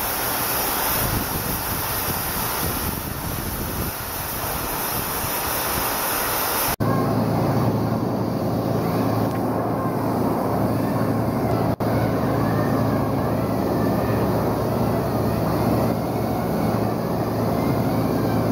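Steady industrial machinery noise: a broad hiss for the first several seconds, then, after an abrupt cut, a lower steady drone with a low hum.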